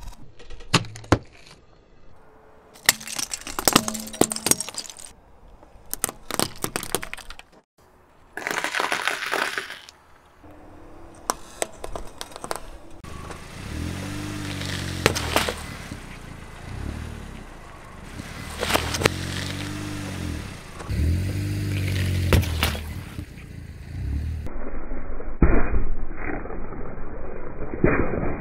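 A car tyre rolling over and crushing objects on asphalt. First comes a quick series of sharp cracks and pops as small coloured balls are squashed. Then the car's engine revs up and down several times, and near the end a watermelon gives way under the tyre with several loud bursting hits.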